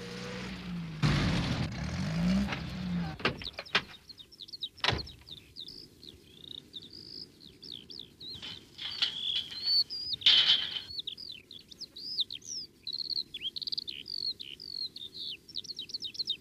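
Small birds chirping rapidly and continuously, quick high chirps one after another, as a countryside birdsong soundtrack. In the first few seconds there is a short noisy rumble with a wavering hum and then a few sharp clicks, as the postman's small red van pulls up.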